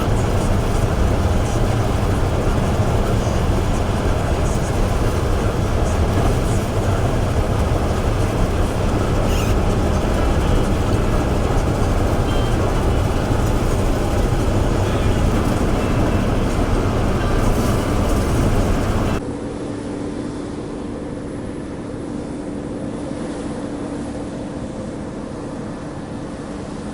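Combine harvester at work: a loud, steady engine and machinery rumble. It cuts abruptly about two-thirds of the way in to a quieter, steady engine hum with a faint held tone.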